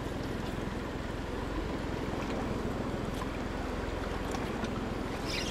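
Boat engine idling with a steady low hum, and a brief high squeak near the end.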